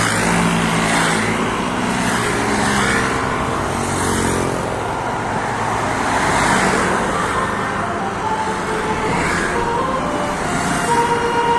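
Buses and other traffic running along a road, with a bus engine's steady drone. Near the end a bus's multi-tone telolet horn starts to sound.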